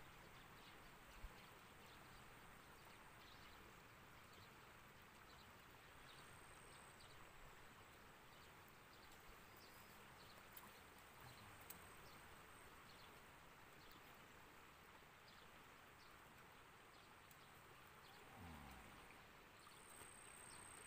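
Near silence: faint open-air background hiss, with a thin high whine that comes and goes.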